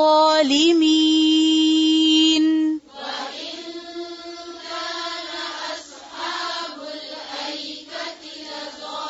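A woman chanting Quran recitation with tajweed, holding one long vowel at a steady pitch until nearly three seconds in. It stops suddenly, and a group of voices then recites the verse together in chorus, quieter and less in tune.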